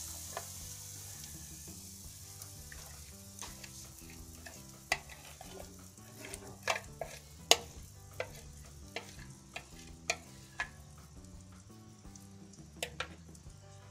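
Batter sizzling as it is poured into a hot frying pan, the sizzle fading away, then a metal spoon clicking and scraping against the bowl and pan as the batter is scooped out and spread. The loudest click comes about seven and a half seconds in.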